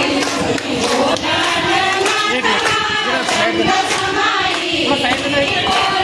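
A crowd of women's voices, many loud at once and overlapping, with scattered sharp claps.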